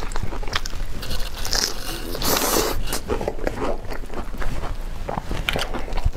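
Close-up sounds of a person biting into and chewing a large, overstuffed burger with a soft bun, egg and shredded cabbage: many small mouth clicks, with a louder noisy burst about two and a half seconds in.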